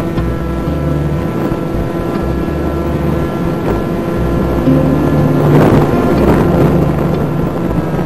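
Onboard sound of the HobbyKing Bix3's electric motor and pusher propeller running at steady throttle in flight, a steady whine with wind rushing over the microphone. The wind noise swells loudest around five to six and a half seconds in.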